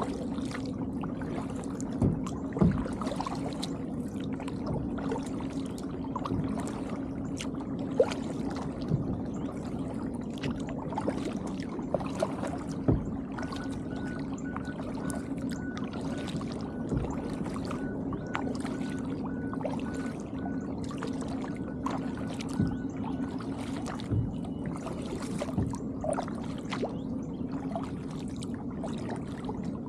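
Kayak paddle strokes: a double-bladed paddle dipping and pulling through calm lake water in a gentle, regular splash, with a few sharp knocks. A steady low hum lies underneath, and for a while in the middle there is a faint repeated beeping.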